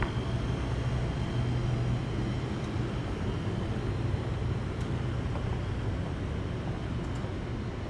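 A steady low engine drone, a little louder in the first couple of seconds, over a background of outdoor noise.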